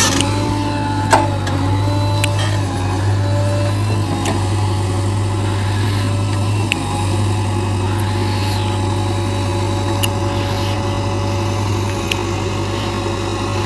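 JCB 3DX backhoe loader's diesel engine running with a steady low drone as the machine works in loose soil, with a few sharp clicks now and then.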